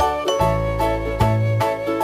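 Instrumental background music: a light children's tune of short melodic notes over a bass line.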